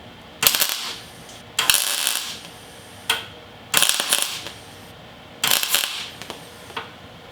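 Welder laying four short tack welds, each a crackling buzz of under a second, joining a replacement rear floor pan into a 1967 Volkswagen Beetle, with a sharp click or two between them.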